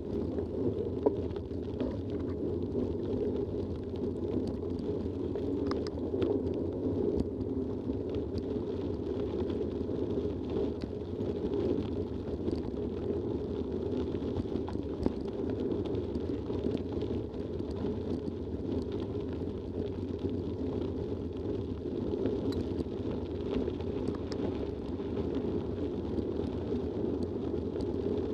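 Mountain bike rolling fast along a gravel forest path: a steady low rumble of the tyres on the gravel, with a few faint clicks.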